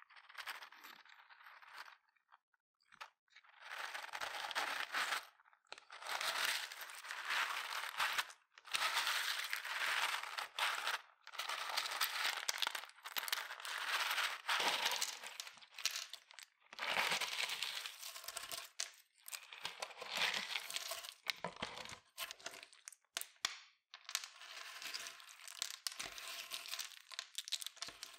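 Clear slime kneaded and squeezed by hand with in-shell sunflower seeds: dense crackling and clicking of the seed shells pressed together in the slime, in squeezes of a second or two with short pauses between.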